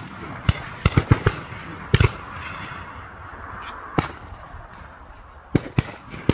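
Irregular series of sharp bangs from shotgun fire at a duck hunt. Several come in quick clusters, and the strongest, about two seconds in and again at four seconds, have a short echoing tail.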